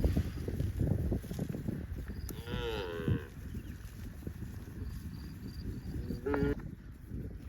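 A cow mooing: one call with a wavering pitch, lasting under a second, about two and a half seconds in, then a second, shorter call about six seconds in. Low irregular thumping noise runs underneath.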